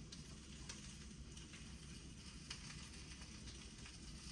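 Faint sizzling and crackling of sausages frying in a skillet, with a few light ticks scattered through it.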